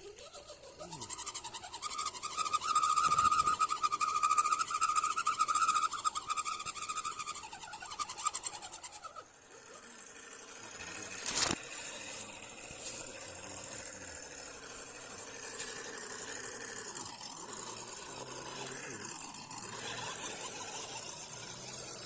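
Small electric RC car motor and gearbox whining as the crawler drives: the pitch rises, holds steady for several seconds, then drops away. A single sharp click comes near the middle, followed by quieter, uneven mechanical noise.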